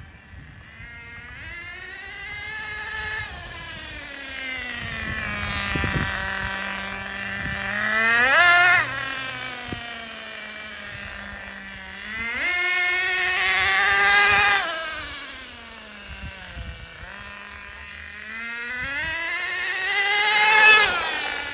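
Traxxas Nitro Rustler's small Pro 15 two-stroke nitro engine revving up and down as the RC truck is driven. Three times it climbs to a high, loud whine, dropping back to a low burble in between. The freshly broken-in engine is running like a charm.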